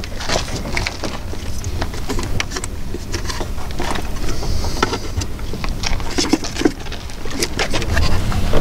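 Irregular small clicks and rustles of heavy battery cables and ring terminals being handled and fitted onto the studs of a terminal block, over a steady low rumble.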